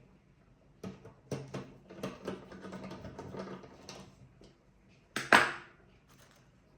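Small hard parts clicking and rattling for a few seconds as computer hardware is handled, then one louder short knock or scrape near the end.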